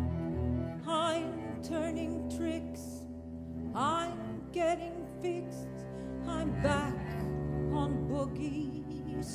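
Slow chamber music: low sustained bowed-string notes under a high melody with strong vibrato, which slides up into a long held note about four seconds in.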